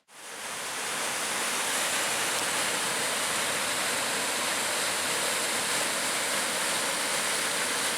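Water pouring over a small waterfall into a frothy pool: a steady, even rush that fades in over the first second.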